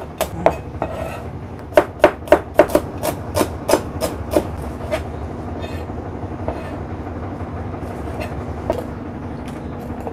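A cleaver chopping on a plastic cutting board: quick knocks about three a second for the first few seconds, then only the odd knock over a steady low hum.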